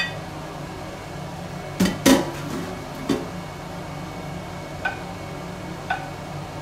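Wooden spoon knocking and scraping in a non-stick frying pan as sliced red onion is stirred in hot oil, with a loud pair of knocks about two seconds in and lighter ones later. The steady hum of the cooker hood runs underneath.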